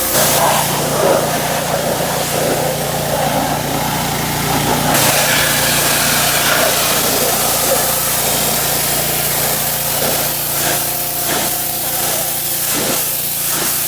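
Pressure washer spraying, a steady loud hiss of the water jet over the hum of the washer's motor.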